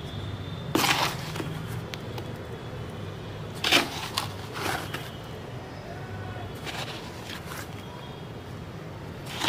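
A small plastic scoop digging and scraping soil out of a plastic bucket, in a few short scrapes over a steady low hum.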